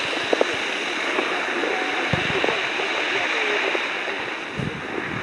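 Steady rushing hiss with faint distant voices, and a couple of low thumps about two seconds in and near the end.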